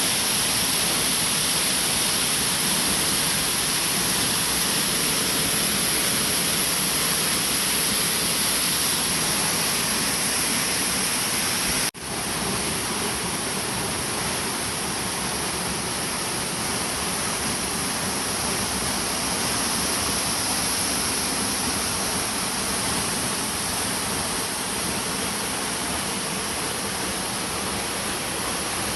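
Steady rushing roar of a waterfall close by. The sound cuts out for an instant about twelve seconds in and comes back a little quieter.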